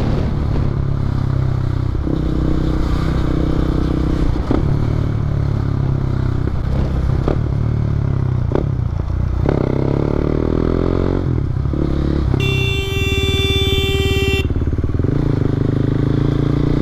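KTM motorcycle engine with an Akrapovic exhaust and the DB-killer removed, running steadily on the move, its revs shifting around ten seconds in. About twelve seconds in, a steady high tone sounds for about two seconds.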